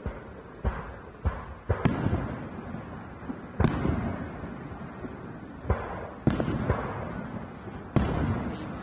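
Aerial fireworks shells bursting overhead: a series of sharp booms, about seven in nine seconds, irregularly spaced a second or two apart, each followed by a rolling, echoing rumble.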